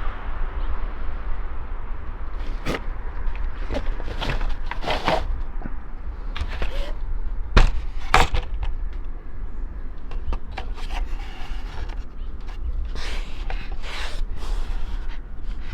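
Plastic dashboard instrument surround trim being handled and set down, giving irregular knocks, taps and scrapes with one sharper knock about eight seconds in, over a steady low rumble.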